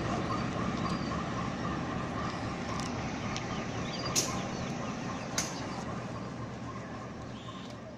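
CC 201 diesel-electric locomotive running steadily while it is turned on a railway turntable, slowly getting quieter, with two sharp metallic knocks about four and five seconds in.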